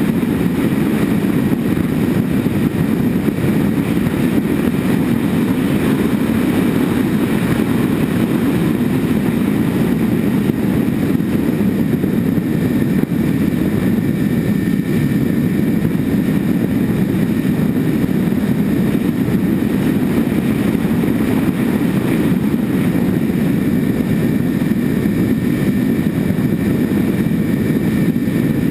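Twin-engine RC model airplane in flight, heard from a camera mounted on the airframe: both propellers and motors run at a steady cruise under a loud, even rush of wind and prop noise, with a faint high whine.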